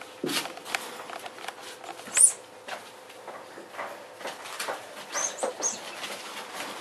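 Puppies scuffling in a plastic dog bed: rustling and light clicks of paws and bedding, with a sharp high squeak about two seconds in and two shorter ones a little after five seconds.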